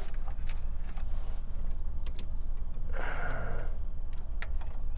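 Small clicks and rustling of plastic wiring-harness connectors being handled by hand, over a steady low hum. There are a couple of sharp clicks about two seconds in, a brief rustle around three seconds, and another click near the end.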